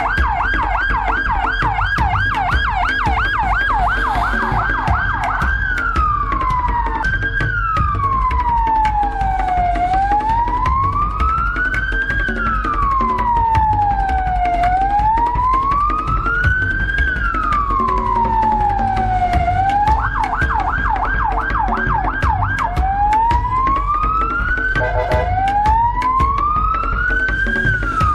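Electronic emergency-vehicle siren: a fast yelp sweeping up and down about four times a second for the first five seconds or so, then a slow wail rising and falling about every five seconds. It switches back to the fast yelp for a few seconds about two-thirds of the way through, over a steady low rumble.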